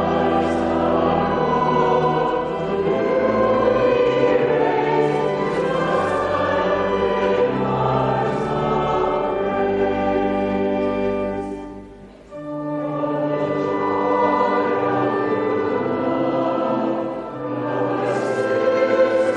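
A choir singing slow sustained phrases with instrumental accompaniment, with a short break between lines about twelve seconds in.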